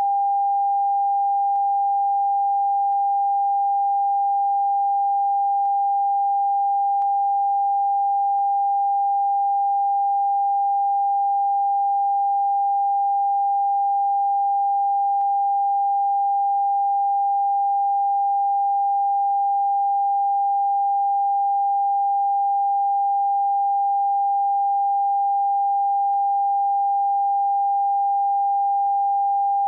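Television test-card tone: a single steady pure beep held without a break, the signal of the end of broadcast.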